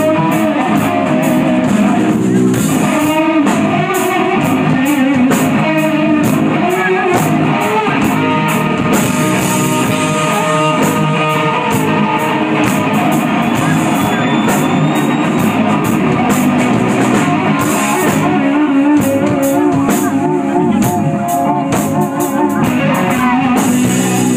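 Live rock band playing: electric guitar through Marshall amplifiers over a drum kit, loud and steady throughout.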